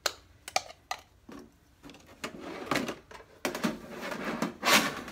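A few light plastic clicks as a round plastic container is taken apart, then longer scraping and sliding as a side tray of a Craft-n-go rolling kit case is lifted and folded shut, loudest near the end.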